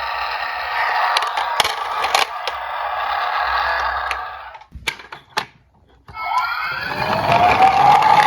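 Diecast toy cars rolling and rattling down a plastic slope, stopping a little after four seconds in with a few clicks. About six seconds in, a rising whine starts and climbs in pitch.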